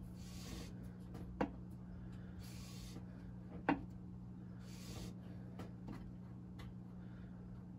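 A lathe tool's edge being stroked on fine 2500-grit wet/dry sandpaper over a glass plate: soft hissing rubs about every two seconds as the burr is raised, with two sharp clicks, over a steady low hum.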